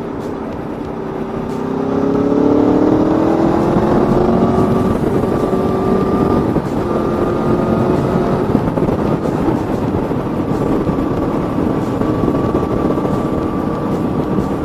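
Aprilia Tuono V4 motorcycle's V4 engine under way, rising in pitch as it accelerates about two seconds in, then holding a steady note while cruising.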